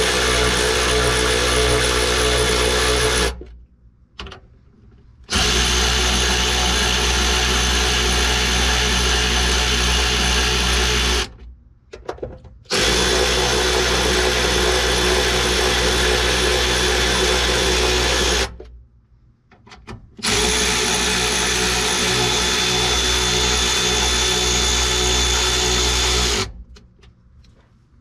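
Cordless ratchet running the mounting bolts of a tailgate check bracket down: four runs of steady motor whir, each a few seconds long, with short pauses between them, stopping shortly before the end.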